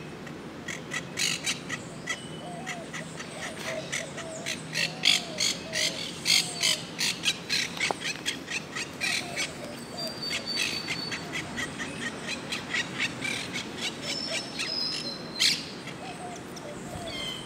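Wild parrots calling around their nest in a palm tree: a quick run of short, sharp, high chirps, two or three a second, with softer, lower warbling notes in between.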